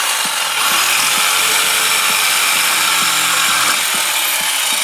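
Jigsaw running steadily, its blade cutting through a metal plate.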